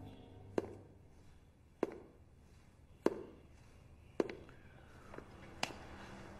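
Slow footsteps on a hard floor, five steps about a second and a quarter apart, each a short sharp click.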